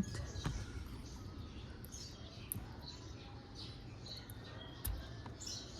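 Faint small clicks and taps of a fuse being handled and fitted into a car's fuse box, with a soft thump near the end.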